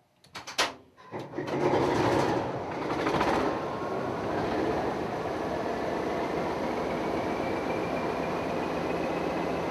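Class 20 diesel-electric locomotive's English Electric eight-cylinder diesel engine being started: a few clicks, then the engine fires about a second in, runs up loudly for a couple of seconds and settles to a steady running sound. A thin whine rises slowly in pitch through the rest.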